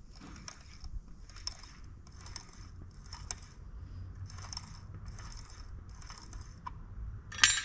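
Repeated raspy strokes of a hand tool, about one a second, as the oil filter is worked loose on a DeSoto Hemi engine; a single sharp metal click near the end.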